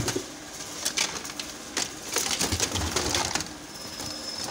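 Plastic toys clattering and rustling as hands rummage through a cardboard carton of used toys, in a string of uneven knocks and rustles. A thin, steady high tone sounds briefly near the end.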